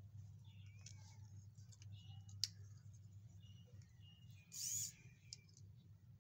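Faint clicks and rustles of small plastic toy-car parts and thin wires being handled and fitted, over a low steady hum. One sharp click comes about two and a half seconds in, and a brief high squeak a couple of seconds later.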